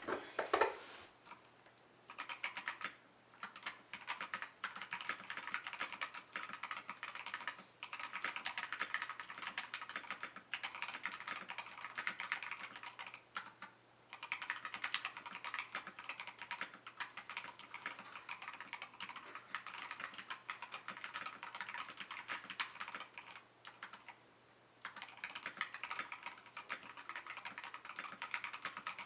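Fast, continuous typing on a 75% mechanical keyboard with unlubed Akko CS Jelly Pink linear switches and XDA-profile keycaps, with brief pauses and one longer pause near the end. A single louder knock comes just before the typing starts.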